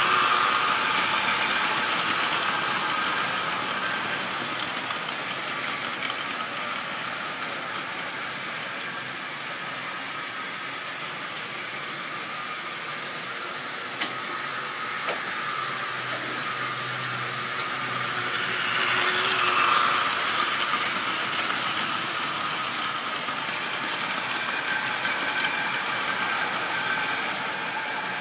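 Model railway locomotive and wagons running on the track, a steady mechanical whirr and rattle that is loudest as the train passes close at the start, fades, and swells again about twenty seconds in.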